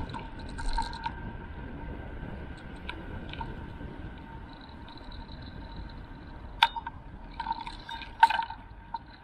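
Riding noise picked up by a bicycle-mounted action camera: a steady low rumble of wind and tyres on the road with a faint whine, and two sharp knocks past the middle as the bike goes over bumps.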